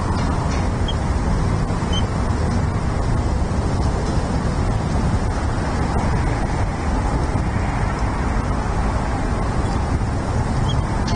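Steady low rumbling outdoor noise picked up by the nest cam's microphone, with a few faint, short, high chirps over it.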